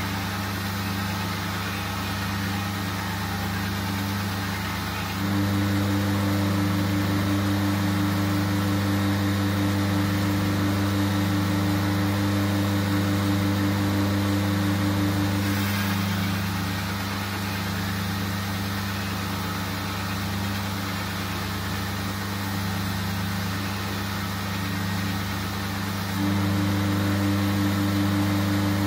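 Belt grinder running with a steady motor hum while a shashka sabre blade's edge is ground on the belt. The hum steps up louder about five seconds in, drops back around sixteen seconds, and steps up again near the end.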